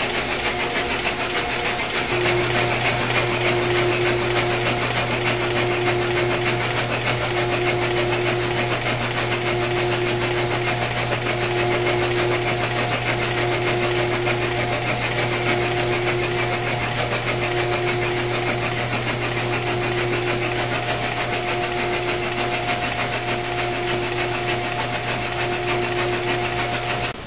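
Chevy II 181 cubic-inch four-cylinder engine turned over at about 200 rpm by a Simtest stand's drive motor for break-in: rapid, even valvetrain ticking over a steady hum that comes in about two seconds in, with a tone pulsing on and off at regular spacing. It cuts off suddenly just before the end.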